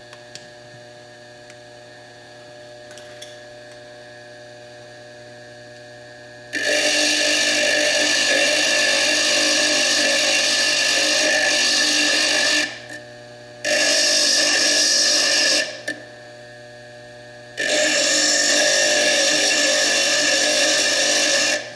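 Foredom bench lathe running with a steady hum, then a coarse burr grinding into fire agate in three loud stretches: about six seconds long, then about two, then about four, with only the lathe's hum between them.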